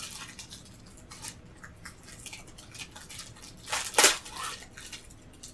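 Plastic Oreo cookie package being handled and opened: crinkling and rustling of the wrapper, with a loud tearing rip about four seconds in.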